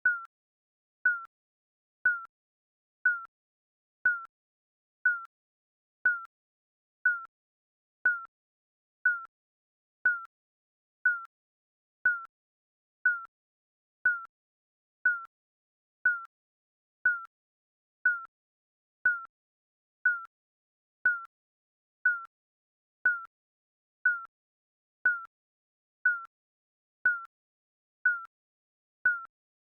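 Digital countdown timer beep sound effect: one short, high beep every second, with silence between.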